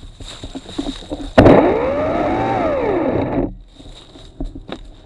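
EGO Power+ PH1400E battery multi-tool power head with its saw attachment, run for about two seconds: the electric motor starts suddenly about a second and a half in, its whine rises and then falls, and it cuts off. A couple of faint clicks follow.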